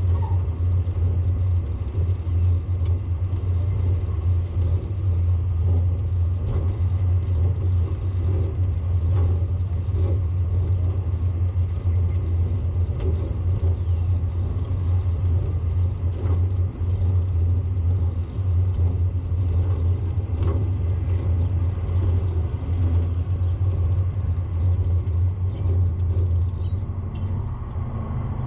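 Steady low rumble of a vehicle in motion, with road noise and no pauses.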